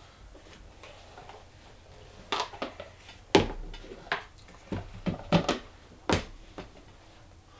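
Plastic disc golf discs being handled and set down: a string of irregular clicks and knocks, the loudest about three and a half seconds in.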